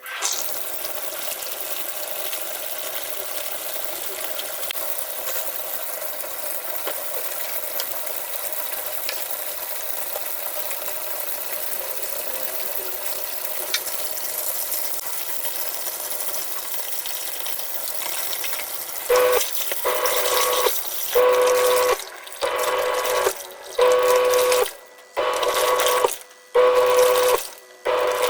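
Water running into the wash tub of a twin-tub washing machine. About two-thirds of the way in, the wash motor starts, running the pulsator in short humming bursts about once a second with brief pauses between them.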